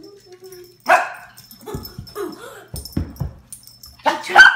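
Small puppy barking and yipping: one sharp bark about a second in, a few soft thumps and short yelps, then a quick run of high yips near the end.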